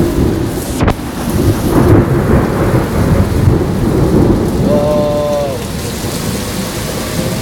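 Heavy rain and strong storm wind of a severe thunderstorm, a dense rumbling downpour, with a short tone sounding briefly about five seconds in.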